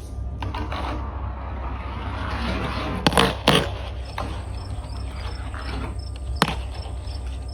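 Marbles rolling down a plastic slide track: a rolling rush that builds over the first few seconds, then sharp clacks of marble striking track, two close together about three seconds in and one more near the end, over a steady low hum.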